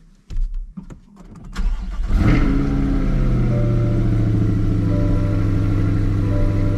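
2020 Chevrolet Corvette C8 Z51's 6.2-litre LT2 V8 starting: a few clicks, a short crank about a second and a half in, then it catches about two seconds in and settles into a steady idle.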